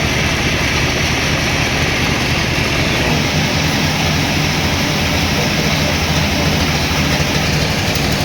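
Sawmill machinery running steadily: an unbroken, loud mechanical drone with a low hum under a dense hiss.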